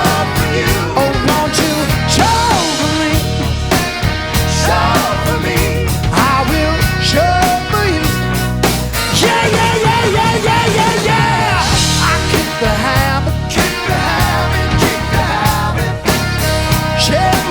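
A rock band playing a song live, with drums keeping a steady beat under bass and a melodic lead line.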